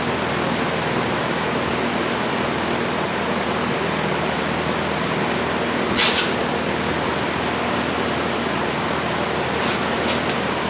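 Steady rushing air noise, like a fan running, with a faint low hum. A short sharp hiss comes about six seconds in, and two fainter ones near the end.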